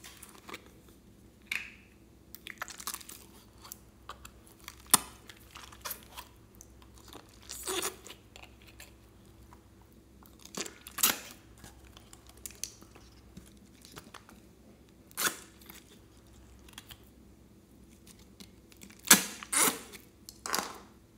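Glitter slime being pulled out of its plastic tub and pressed by hand in a glass bowl: short crackling pops in irregular clusters, the loudest pair near the end.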